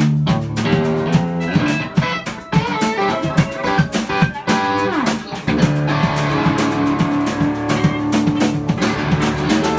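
A live band jamming: two electric guitars playing held and sliding notes over a drum kit's steady beat.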